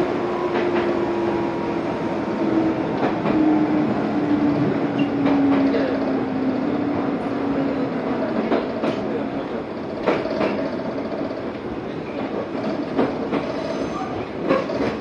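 Izu Hakone Railway electric train running on its line, heard from inside the cab: steady wheel-on-rail rumble with an electric whine that falls slowly in pitch, and irregular knocks as the wheels pass over rail joints. The train is nearing the Shuzenji terminus.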